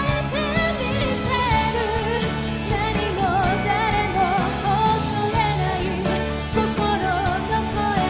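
A woman sings a Japanese-language pop ballad in a high voice, holding notes with strong vibrato over full instrumental backing with drums.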